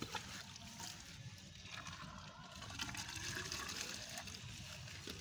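Water from a garden hose running into an earth-pit pipe, wetting the earthing chemical packed around the copper earth rod.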